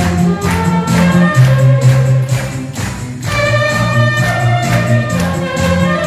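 Saxophone playing a slow gospel hymn melody over a backing track with a steady beat and bass, and the congregation clapping in time. The melody holds long notes in the second half.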